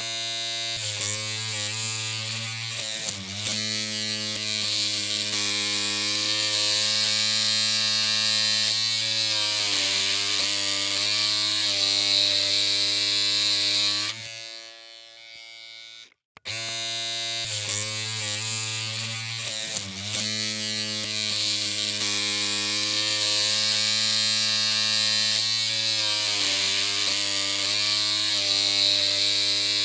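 Electric hair clippers running with a steady low buzzing hum and a bright hiss on top. The pitch wavers briefly a few seconds after starting. The clippers cut off about 14 seconds in and start up again about two seconds later, repeating the same run.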